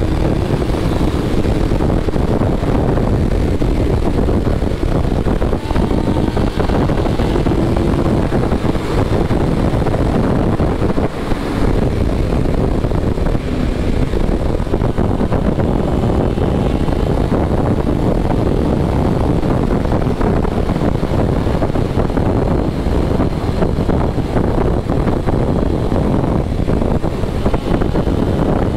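Sport motorcycle at high speed: a steady roar of wind over the rider's microphone, with the engine running underneath.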